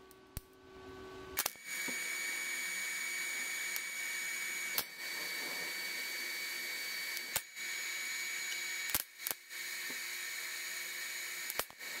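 TIG welding arc fusing a muffler onto an exhaust header pipe: a steady hiss with a high whine that starts about a second and a half in, broken several times by sharp clicks.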